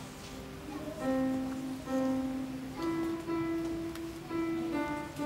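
Upright piano played by a young child: a slow, simple melody of single notes, each held for about a second or less.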